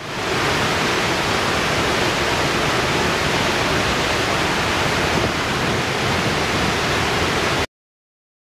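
Waterfall, a steady rush of falling water. It comes in quickly and cuts off abruptly near the end.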